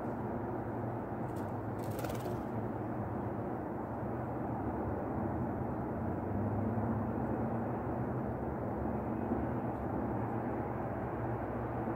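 Steady low rumble of outdoor background noise, with a brief hiss about two seconds in.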